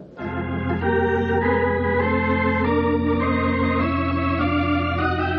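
Organ music bridge between scenes: held chords shifting every second or so over a steady sustained bass note.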